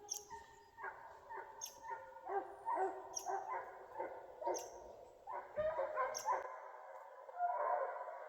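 A pack of bear hounds baying and barking in rapid, overlapping cries as they run a bear's track toward the listener.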